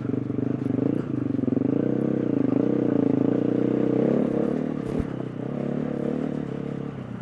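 2020 KTM 350 EXC-F dirt bike's single-cylinder four-stroke engine being ridden at low speed, its revs rising and falling with the throttle and easing off after about four seconds. A short knock sounds about five seconds in.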